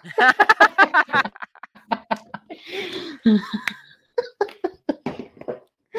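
Laughter: a quick, loud run of ha-ha pulses over the first second, then scattered chuckles and snickers trailing off, with short pauses.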